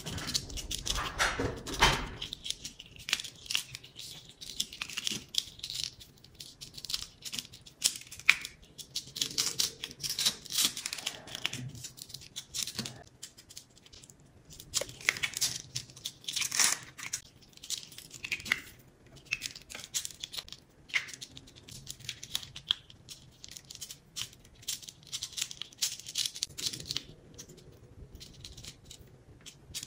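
Adhesive backing film being picked at with a wooden stick and peeled off a sand-painting card: irregular short crackling tears and scratches of thin paper coming unstuck.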